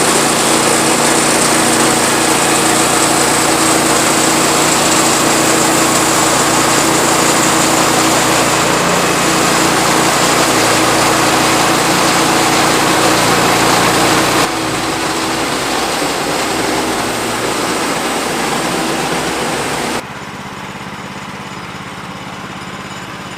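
Engine of a Woodland Mills HM126 portable band sawmill running steadily as the mill saws. It is loud, and drops in level twice, about 14 seconds in and again about 20 seconds in.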